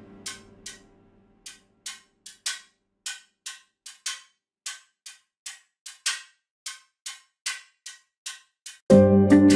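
Clock-like ticking, about two to three sharp ticks a second with silence between them, after a music bed fades out in the first second. Loud guitar music comes in suddenly near the end.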